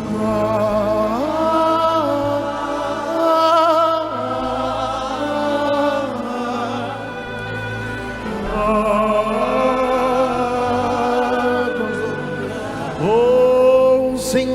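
Gospel worship music: a voice holds long notes with vibrato, swooping up into them, over sustained keyboard and bass chords.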